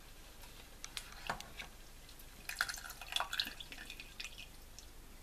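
A slotted spoon scraping and tapping in a saucepan as cooked, wet onion and apricot pieces are scooped out, with faint wet drips. The sounds come as scattered light clicks, with a busier run of scrapes and taps about two and a half to three and a half seconds in.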